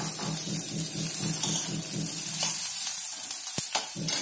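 Chopped onion, capsicum and green chillies sizzling in hot oil in a steel kadai while a steel spatula stirs them. The spatula scrapes and taps the pan a few times near the end, over a low pulsing hum.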